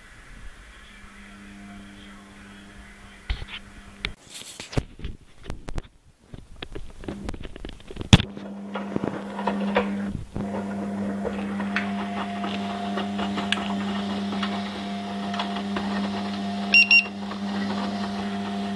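Washing machine running with a steady electric motor hum. The hum drops out for a few seconds of clicking and knocking, then comes back steadier and louder. Two short electronic beeps sound near the end.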